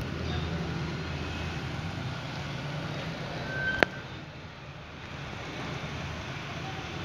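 Steady low background rumble, with one sharp click a little under four seconds in.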